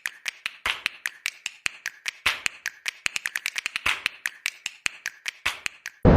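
Rapid, irregular sharp taps or clicks, about five to six a second, each with a short ringing tone. Near the end they stop suddenly as loud, steady rushing water cuts in.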